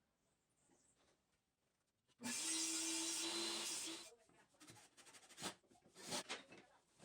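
A small electric power tool runs for about two seconds with a steady motor hum, then stops. Scattered knocks and clicks of wood being handled follow.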